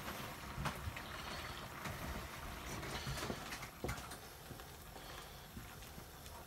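Coconut curry sauce simmering in a frying pan on a gas hob, a steady bubbling with a few faint knocks; from about four seconds in it is stirred with a wooden spoon.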